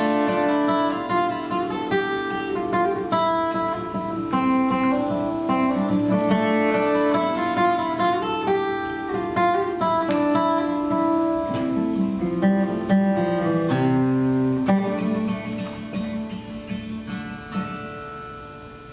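Solo acoustic guitar playing a melodic instrumental, picked note by note, thinning out over the last few seconds as the tune comes to an end with its final notes ringing.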